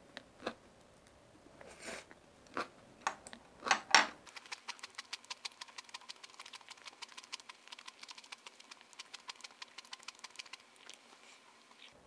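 Close-miked chewing of seasoned vegetable side dishes (namul): a few louder crunches and knocks in the first four seconds, then a quick, steady run of small crisp chewing clicks that fades out near the end.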